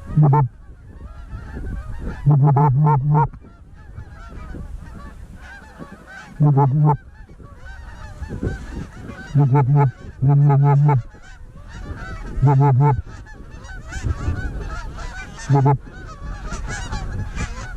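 A flock of Canada geese honking and clucking throughout, with about seven louder bursts of drawn-out, low, moaning honks, the kind blown on a hunter's goose call to bring incoming geese into the decoys.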